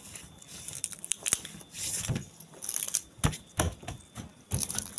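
A pet monkey's fingers picking at and tearing a small white crumbly piece: light crinkling and tearing with irregular sharp clicks and a few dull knocks.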